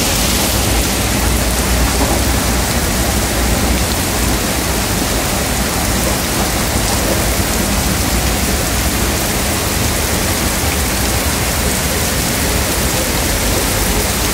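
Heavy rain falling steadily on paved ground and standing water, an even unbroken hiss.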